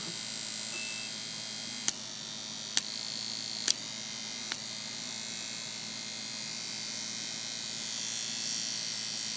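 Steady buzzing hiss, with four sharp clicks a little under a second apart in the first half.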